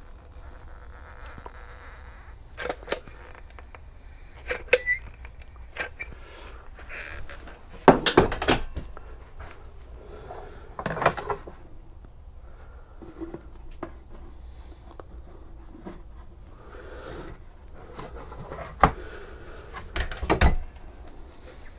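Thin aluminum channel strips clinking and knocking against each other, the birch board and the workbench as they are handled and fitted. The knocks are scattered, with the loudest clatter about eight seconds in and more near the end.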